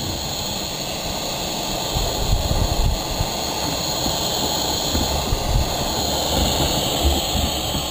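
Gas burner flame burning steadily under the hot cap of a small Stirling engine, an even rushing hiss with a low rumble beneath, heating the engine before it is started.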